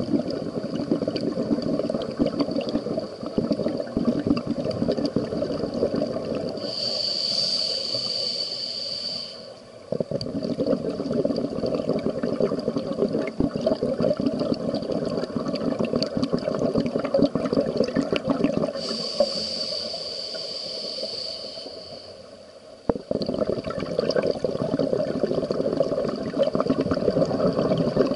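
Scuba diver breathing through a regulator underwater: long, crackling streams of exhaled bubbles, broken twice by a hissing inhalation lasting a few seconds, about a quarter of the way in and again about two-thirds through.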